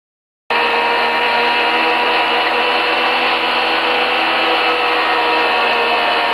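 Single-seater Grand Prix racing car engine running at high revs, heard onboard close to the engine with wind and road noise. It cuts in suddenly about half a second in and holds a steady pitch.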